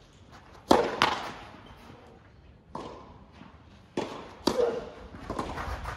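Tennis racket hitting the ball on a serve: sharp pops with a brief ring from the strings, the loudest about a second in and again near the middle, amid a few other ball knocks and bounces.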